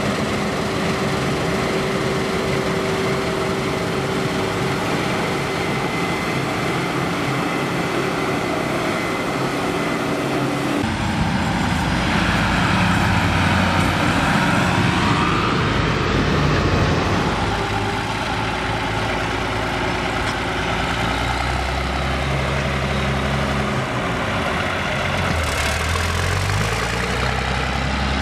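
New Holland CR combine harvester running steadily while cutting wheat. About eleven seconds in, the sound cuts to tractor engines: a New Holland tractor hauling a loaded grain trailer grows louder as it passes, then a second tractor towing a combine header on a trailer comes by.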